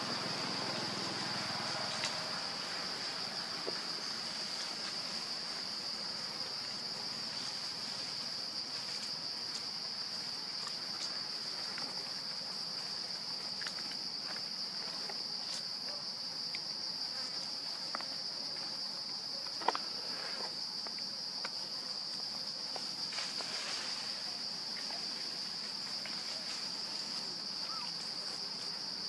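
Insect chorus: a steady high-pitched drone that runs on without a break, with scattered faint ticks and one sharper click about twenty seconds in.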